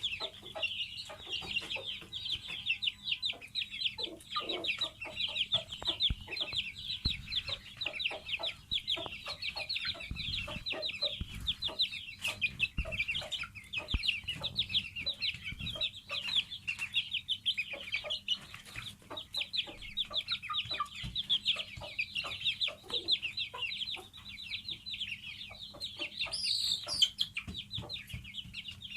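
Aseel chicks peeping: a continuous stream of rapid, high-pitched cheeps, with one louder, higher call near the end.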